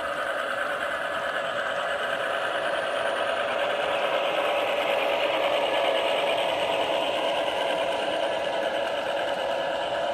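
Garden-scale model diesel locomotive and its freight cars running past on track: a steady whir of the electric motor and gears mixed with the clatter of wheels on the rails. It grows slightly louder in the middle as the train passes closest.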